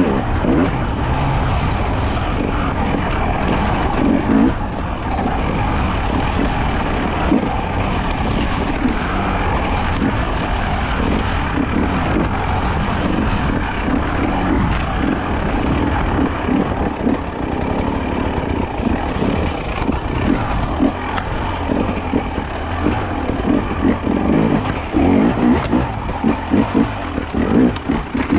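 Two-stroke enduro motorcycle engine running under constant throttle changes while ridden through woodland singletrack, heard from the bike's onboard camera. Over the last few seconds it goes to quick on-off throttle blips.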